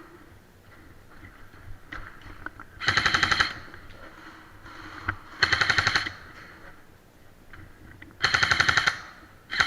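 Airsoft guns firing on full auto: four short bursts of rapid clicking shots, each about half a second long, the last starting just at the end.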